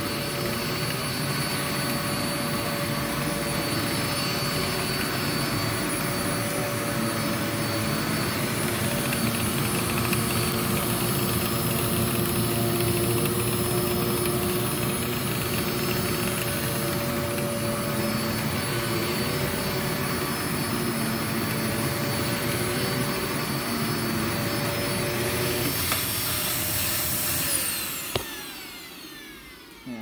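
Hoover Z400 upright vacuum cleaner running steadily over carpet, then switched off near the end, its motor winding down with a falling whine. That wind-down sound is what makes the owner suspect the motor bearings are potentially starting to go.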